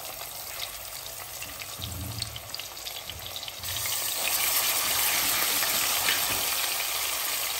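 Ginger-garlic paste frying and sizzling in hot oil in a metal pot, being stirred with a wooden spoon. The sizzle grows louder a little past halfway as the spoon spreads the paste through the oil, with light scrapes and taps of the spoon on the pan.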